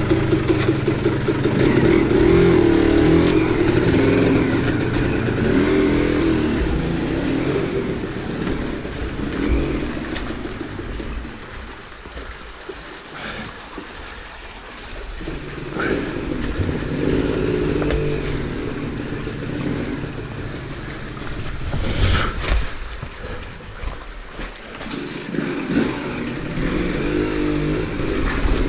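Dirt bike engine running at low speed over rocks and shallow water, rising and falling with the throttle and easing right down for a few seconds about midway. There is one sharp knock about two-thirds of the way through.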